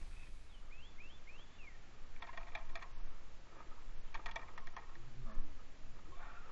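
Spinning reel clicking in two short runs, about two seconds and four seconds in, as a fish is played on a hard-bent rod.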